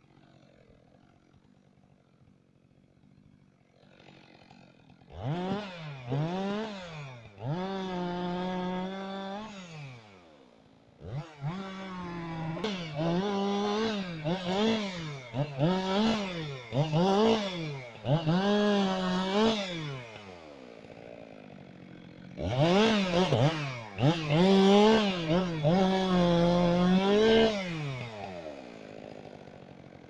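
Two-stroke chainsaw, quiet at first, then revved in repeated short bursts from about five seconds in, its pitch dipping and recovering within each burst as it cuts branches off a felled conifer trunk. It drops back to a lower idle twice between runs and again near the end.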